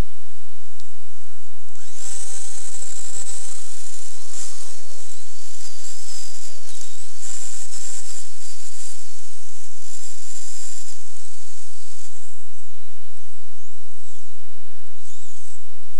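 Kyosho Blizzard RC snowcat's electric motor and gearbox whining as it drives, the pitch rising and falling with throttle. It starts about two seconds in and runs for about nine seconds, followed by a few short bursts near the end.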